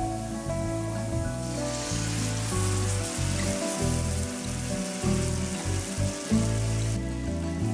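Coconut milk sizzling as it is poured into a hot pan of fried onions. The hiss starts about a second and a half in and cuts off near the end, over steady background music.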